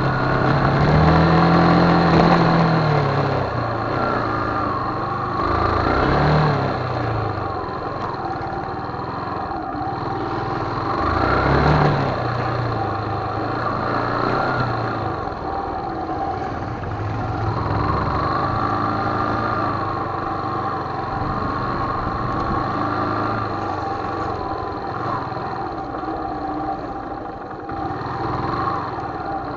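Motorcycle engine running at low speed, its pitch rising and falling a few times as the throttle is opened and eased off.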